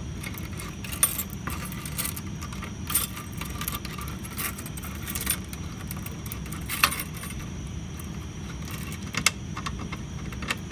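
Scattered metallic clicks and clinks of keys and the reset mechanism as a Pyrotronics MS-51 single-action pull station is worked by hand to reset it, about six sharp clicks spread over several seconds.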